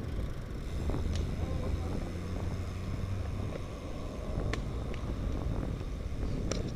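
Wind rumbling on the microphone of a bike-mounted camera, with tyre and road noise from a road bicycle rolling over asphalt and a couple of sharp ticks.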